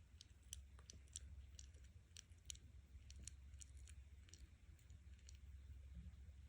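A 17-day-old kitten purring faintly: a low, steady, slightly pulsing rumble, with scattered faint soft clicks over it.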